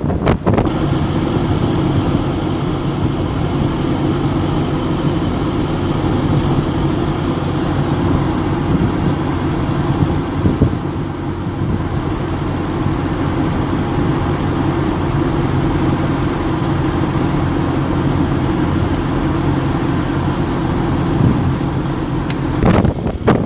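Vehicle engine running at a steady road speed, a steady low hum with road and wind noise over it. Brief wind buffeting on the microphone right at the start and again near the end.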